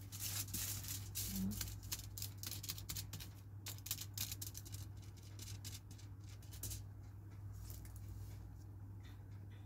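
Silicone pastry brush stroking oil over aluminium foil lining a cake pan: quick crinkling, scraping strokes of the foil, dense at first and thinning out after about seven seconds, over a steady low hum.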